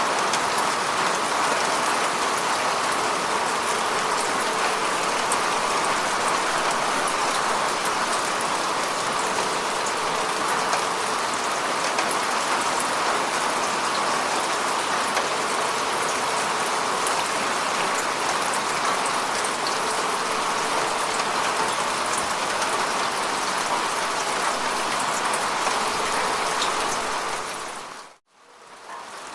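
Steady rain falling on a lake's water surface, a dense, even patter of drops. Near the end it fades out to near silence for about a second and then fades back in.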